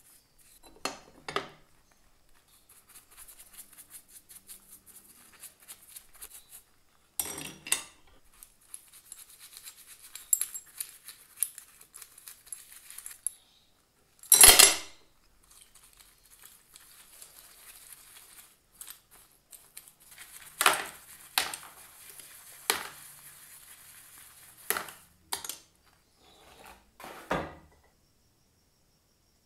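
Paintbrush bristles scrubbing small rusty steel tool parts in a plastic tub of degreaser with quick strokes. The parts clink and clank against each other and the tub as they are handled, with the loudest clank about halfway through.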